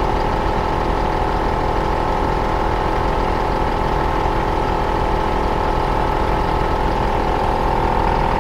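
T-Max 4x4 portable air compressor running steadily, pumping air into an off-road tyre through its hose as the pressure climbs, with the vehicle's engine idling underneath. The compressor's hum holds one even pitch throughout.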